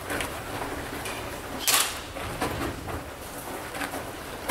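Indoor airsoft skirmish: one loud, sharp crack about two seconds in, with lighter knocks and scuffs around it.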